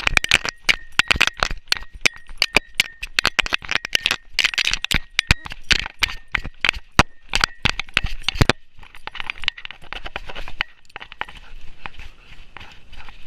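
Rapid, irregular rattling and clinking from a camera rig and collar gear strapped to a running golden retriever puppy, jolted with each stride. About two-thirds of the way through the sharp clicks stop and give way to a softer, noisier rustle.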